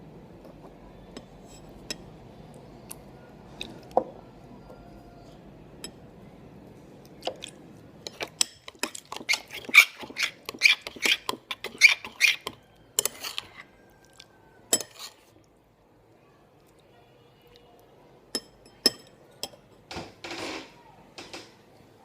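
Clinks and clicks of a utensil and containers being handled while slime is mixed, scattered at first, then a dense run of them in the middle, then a few more.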